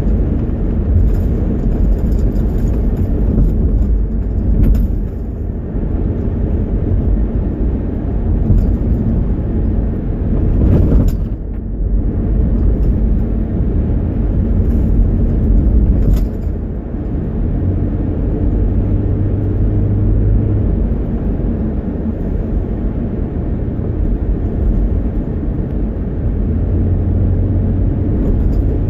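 Car driving on a sealed road, heard from inside the cabin: a steady low engine and tyre rumble, with a few short knocks.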